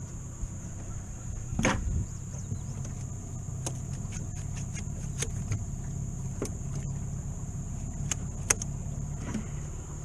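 Knocks and clicks of catfish and gear being handled on the floor of a metal jon boat, with a thump a little under two seconds in and a sharp click near the end, over a steady low hum and a constant high insect drone.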